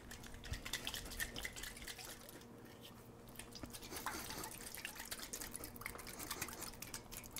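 Stainless steel iSi whipping siphon, charged with nitrous and filled with thick guacamole puree, being shaken hard by hand: faint sloshing with a quick, irregular run of small clicks and knocks, over a steady low hum.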